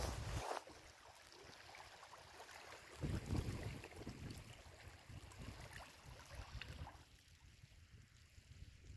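Wind gusting on the microphone, with faint lapping of small lake waves on a stony shore. The gusts are strongest about three seconds in, and it all grows quieter near the end.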